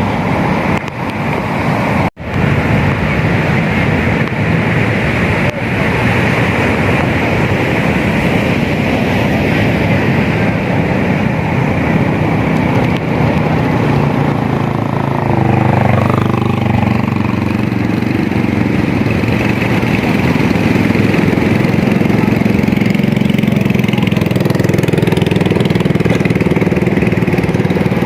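A small engine running steadily, rising and falling in pitch around the middle, over a continuous rush of surf.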